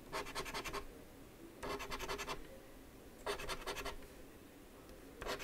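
Scratch-off lottery ticket being scratched: short bursts of rapid back-and-forth scraping across the ticket's coating, one spot after another, about one burst every second and a half.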